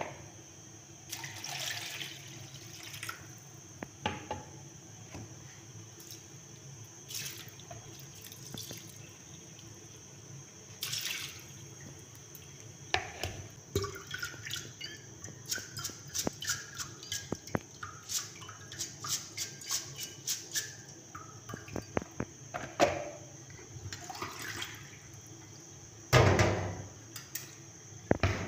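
Raw rice being washed in a plastic colander in a stainless steel sink: water splashing and draining, with plastic bowls and the colander knocking. A quick run of small clicks comes in the middle, and the loudest rush of water comes near the end.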